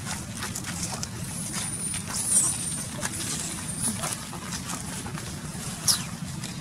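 Outdoor ambience with a steady low rumble, scattered crackles like dry leaves being stepped on, and a few thin, very high squeaks. The loudest is about two seconds in, and a sharp falling squeak comes near the end.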